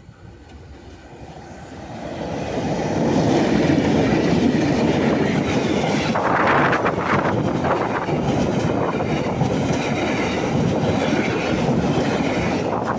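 Train hauled by two MLW diesel locomotives passing close by. It builds up over the first few seconds, then stays loud with a steady rumble and wheel noise on the rails. A brief higher-pitched screech comes about halfway through.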